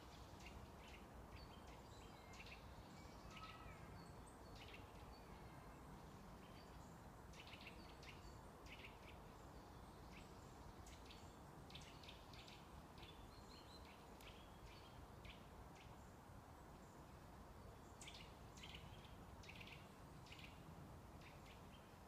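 Birds chirping faintly in woodland: many short, scattered chirps, busiest around the middle and again near the end, over a steady low hiss of background noise.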